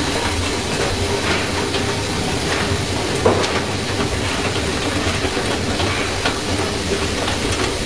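Seeds pouring from a sack into the hopper of a running cylindrical seed-roasting drum: a steady rushing hiss with scattered ticks of seed over a steady machine hum.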